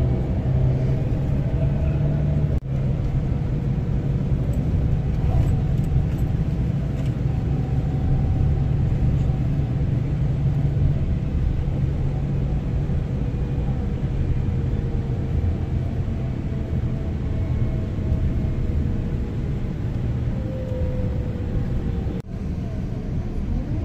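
A bus's engine and road noise droning steadily inside the passenger cabin while the bus drives, with a faint rise and fall of engine pitch.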